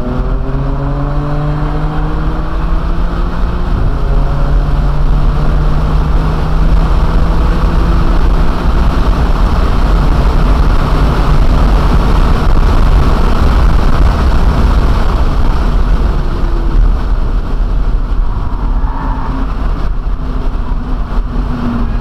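BMW M2 Competition's twin-turbo straight-six accelerating hard on track, heard from inside the cabin, with a gear change near the start. Wind and tyre noise build to a loud peak partway down the straight, then ease slightly toward the end.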